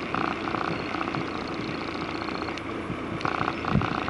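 Motorbike engine running as the bike rides along, with road and wind noise. A rapid pulsing buzz, about four pulses a second, sounds at the start and again near the end, and a low thump comes just before the end.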